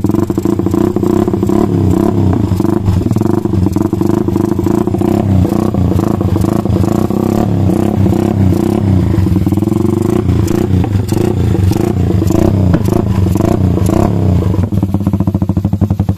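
Honda TMX single-cylinder four-stroke motorcycle engine running through an aftermarket exhaust with a blue-tipped muffler, a steady note whose pitch wavers slightly a few times.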